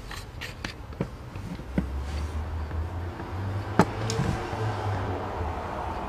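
Handling noise of a plastic adjustable hand grip trainer: scattered sharp plastic clicks and knocks as it is turned over in the hand, the loudest about four seconds in, over a low rumble.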